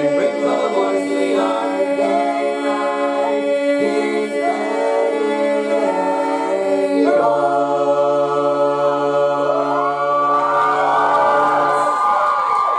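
Barbershop quartet singing a cappella in close harmony, holding long chords that change once about halfway through. Near the end a higher voice glides over the held chord before the lower parts cut off.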